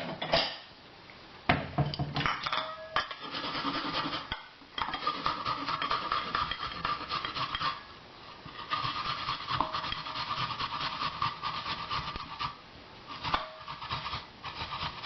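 Peeled fresh ginger root rubbed hard against a hand scraper/grater: rapid rasping strokes in two long runs, with a short break about eight seconds in. A sharp knock about a second and a half in.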